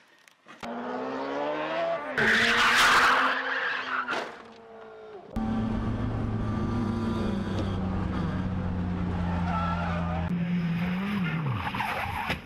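A sports car's engine revs while the car slides on a race circuit, with loud tyre squeal about two seconds in, then the engine note falls away. After a cut, a race car's engine is heard from inside the cabin running at a steady pitch, dropping in pitch shortly before the end.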